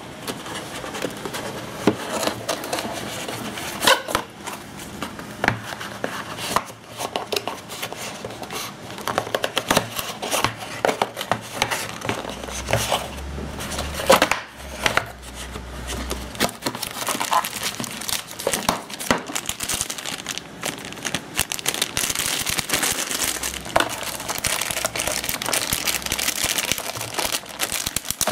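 Unboxing handling noise: cardboard box parts and inserts rustling and knocking, with a plastic wrapping bag crinkling steadily through the last several seconds.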